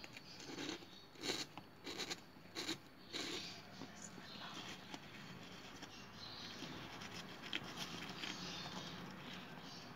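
Hands turning chicken eggs in dry husk bedding: a cluster of light clicks and knocks in the first three seconds, then faint rustling with a few light ticks.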